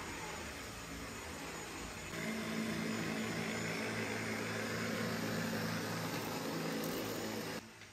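A steady motor drone with a low hum, louder from about two seconds in and cutting off abruptly near the end.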